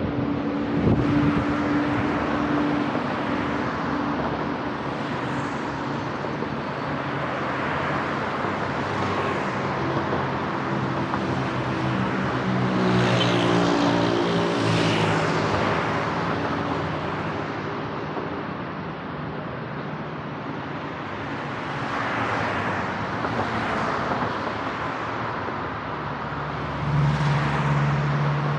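Road traffic: cars driving past on a wide boulevard, engine hum and tyre noise swelling and fading as each one passes. A louder car passes close by near the end.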